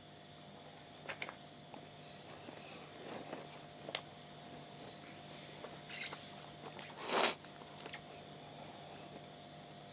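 Crickets chirping steadily in a night-time ambience, with a few soft footsteps and clicks. A sudden loud rush of noise about seven seconds in lasts about a third of a second.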